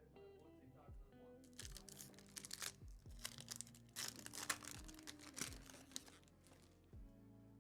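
A trading-card pack's foil wrapper being torn and crinkled in two bouts, the first a second and a half in, over quiet background music.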